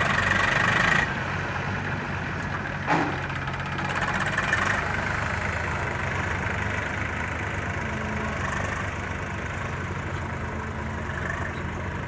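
An engine running steadily at idle. It gets a little quieter about a second in, and there is a single short knock about three seconds in.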